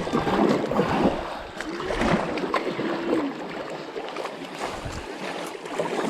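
Kayaks moving down a flowing river: running water with scattered paddle splashes and knocks. A faint voice is heard briefly about two seconds in.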